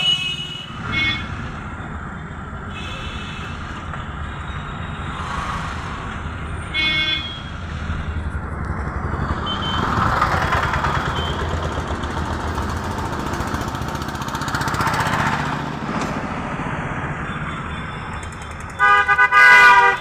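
Vehicle engine and road noise heard from inside the cab, with short horn toots near the start and about seven seconds in. Near the end a loud vehicle horn sounds in a few quick blasts.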